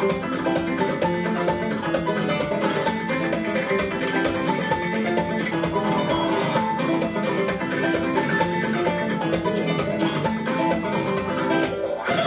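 Recorded music of quick plucked-string notes, guitar-like, played in the room through AER full-range drivers on open baffles, driven by a 300B single-ended tube amplifier. The music dips briefly near the end before a new phrase starts.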